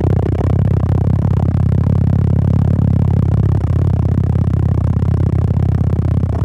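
A 2022 Camaro SS 1LE's 6.2-litre LT1 V8 under full throttle, heard from inside the cabin as a loud, steady drone. The car is accelerating hard through upshifts from fourth to sixth gear of its 10-speed automatic.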